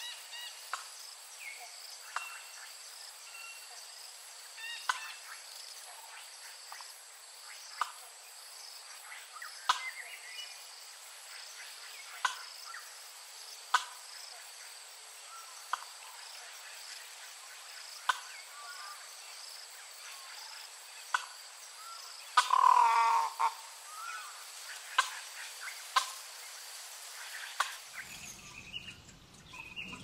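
A steady high insect drone with short bird chirps every second or two, and one louder, longer call about three-quarters of the way through.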